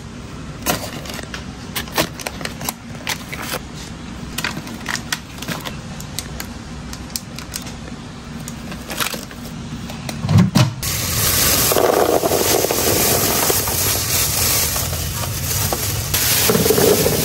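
Packs of meat in plastic being handled and stacked, with many clicks, crackles and scrapes and a couple of heavier knocks about ten seconds in. Just after that a steady rushing noise starts suddenly and carries on.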